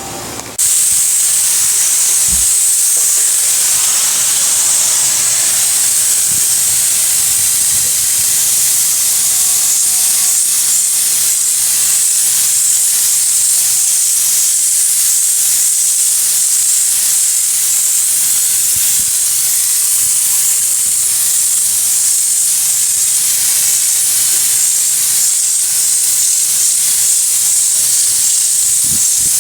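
Air-fed texture spray gun spraying bed liner: a loud, steady hiss of compressed air that starts about half a second in.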